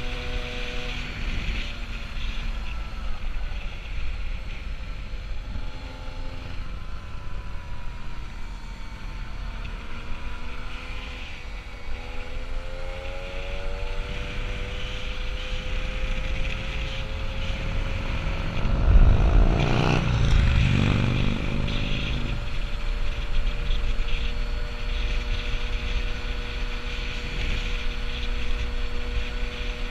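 Peugeot 103 moped's 50 cc two-stroke engine running steadily while riding, with wind noise on the microphone. About twenty seconds in, a vehicle passes close by, briefly louder, its engine sound sweeping in pitch as it goes past.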